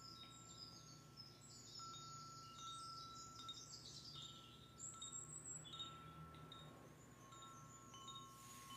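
Wind chimes ringing faintly: scattered short high notes over a couple of long held tones.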